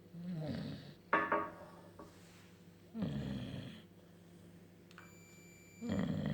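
Sleeping bulldog snoring: three rough snores about three seconds apart, with a sharper, louder breath about a second in.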